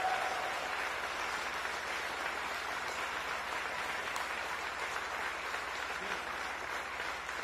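Audience applauding steadily, a dense even clapping that eases off slightly near the end.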